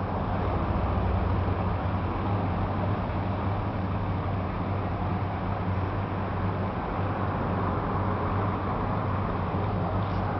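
Steady low hum of a car engine idling, heard from inside the car's cabin, with street traffic noise around it.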